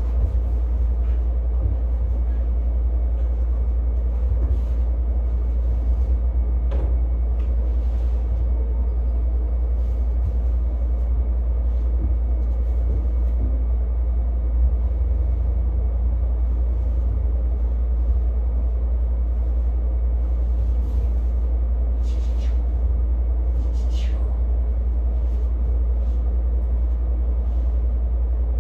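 A steady low hum or rumble, with a few faint scattered ticks and clicks.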